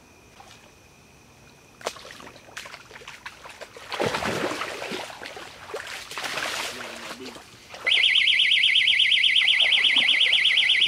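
Water splashing as a catfish is let go in the shallows, then an electronic fishing bite alarm starts about eight seconds in and keeps sounding, a loud, rapidly warbling beep: a fish has taken the bait and is pulling line on a rod.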